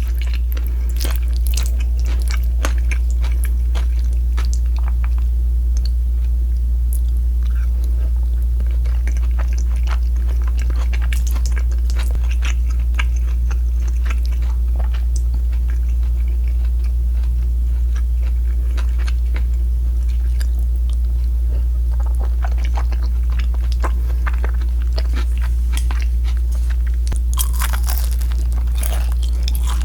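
Close-miked crunching, biting and chewing of crispy fried pork, in many sharp crackles that come thickest at the start and again near the end. A steady low hum runs underneath.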